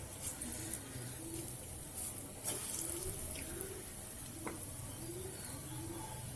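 Hot oil sizzling steadily as urad dal pakoras deep-fry, with a few faint pops. A pigeon coos repeatedly in the background, about once a second.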